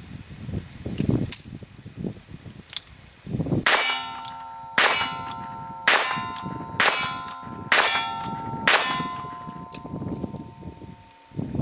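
Six shots from a .22 revolver fired single action with Federal Auto Match rimfire ammunition, about one a second, all going off without a misfire. Each shot is followed by a ringing metallic clang that hangs on between shots.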